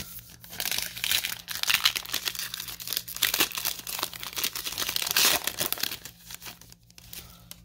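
Plastic wrapper of a Diamond Kings trading-card pack crinkling and tearing as it is handled and ripped open: a dense crackle of small crinkles lasting about six seconds, dying away near the end.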